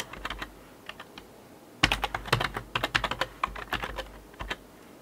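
Typing on a computer keyboard: a few key clicks at the start, then a quick flurry of keystrokes from about two seconds in until just before the end.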